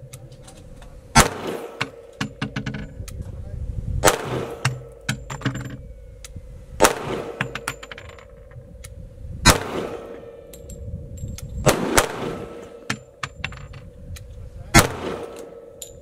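A .45 ACP pistol fired six times in slow, aimed succession, a shot about every two and a half to three seconds, each with a short echoing tail.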